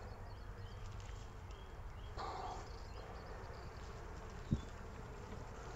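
Faint steady hum of honeybees around an open hive as brood frames are moved, with small birds chirping faintly and one soft knock about four and a half seconds in.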